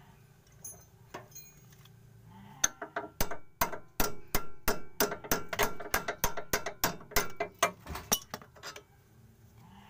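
Ratchet wrench clicking in quick, sharp metallic strokes, about four a second, starting a few seconds in and stopping near the end, as the nut of a front stabilizer link is undone.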